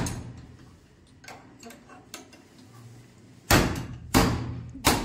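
A hand-held stone hammered against a padlocked door latch to break the lock: three sharp knocks in quick succession in the second half, about two-thirds of a second apart, after a quieter stretch of small ticks.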